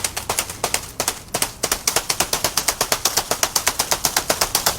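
Rapid, even clicking, about ten sharp clicks a second, somewhat uneven for the first second before settling into a steady rhythm.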